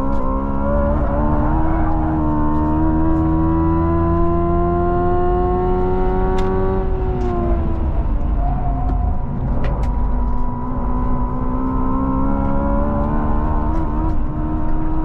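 Hyundai IONIQ 5 N under hard acceleration, heard from inside the cabin: a layered whine of its electric drive that climbs slowly in pitch, falls away about seven seconds in, then climbs again. A steady road and tyre rumble runs underneath.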